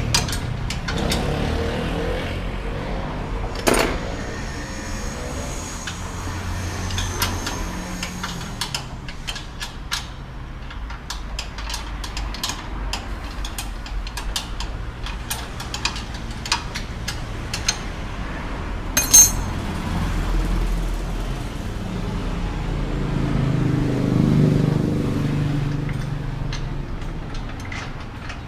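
Hand tools clinking and knocking against metal parts during suspension work, over a steady low workshop rumble. A sharp metallic clang rings out about 19 seconds in, and a low rumble swells and fades near the end.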